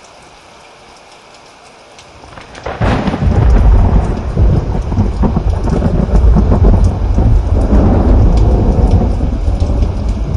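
Rain falling steadily, then about two and a half seconds in a loud, deep roll of thunder builds quickly and keeps rumbling to the end, with the rain still going.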